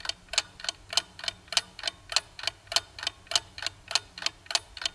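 Clock-ticking sound effect, a quick and even ticking, used as a countdown timer while the quiz question waits for an answer.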